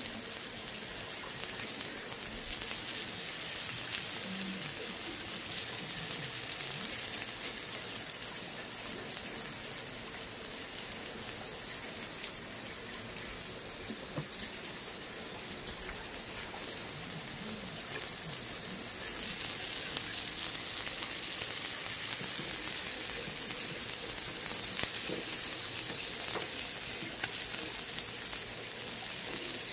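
Makchang (pork intestines), pork belly, garlic and peppers sizzling steadily on a round griddle pan, with scattered faint pops and crackles.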